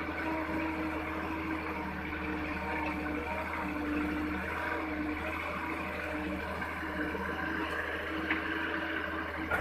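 Kato HD450SE crawler excavator's diesel engine running steadily under load as the bucket digs into soil, with a wavering tone over a constant low hum. A couple of short knocks near the end.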